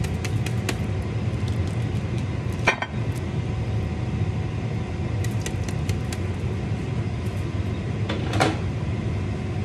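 Steady hum of a kitchen fan running, loud enough to be called way too overwhelming, with faint scratchy clicks of hard cheese being grated over a metal sheet pan and two brief knocks, about three seconds in and near the end.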